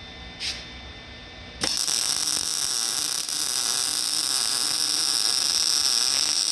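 Wire-feed (MIG) welder arc struck about a second and a half in, then running as a steady loud hiss while a bead is laid to weld a cut-out section back into a steel truck frame. A low hum comes before the arc starts.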